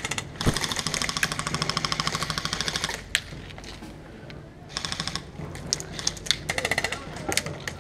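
Airsoft electric guns firing full-auto: a rapid, even burst of about two and a half seconds, then two short bursts, with a few single sharp cracks between them.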